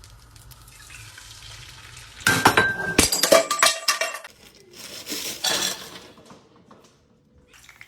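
Pots, pans and utensils clattering and scraping, with a burst of clinks and knocks about two seconds in and another about five seconds in.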